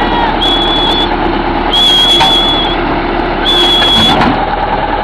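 Three shrill whistle blasts, each held at one steady high pitch for about half a second to a second, over the steady running of the crawler's diesel engine.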